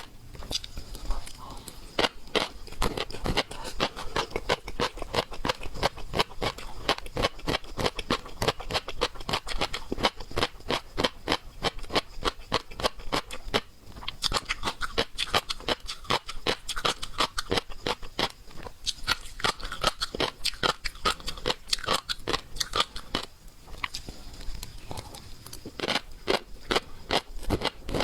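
Close-miked eating of raw seafood: rapid, irregular wet chewing and mouth smacking, many sharp clicks a second, over a faint steady high tone.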